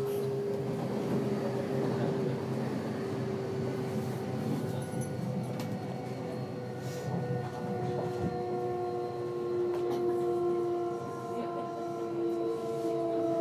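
Kintetsu Series 21 train's Mitsubishi IGBT VVVF inverter and traction motors, heard from inside the car. Several steady whining tones hold, then shift to new pitches every few seconds, over the continuous rumble of the train running on the rails.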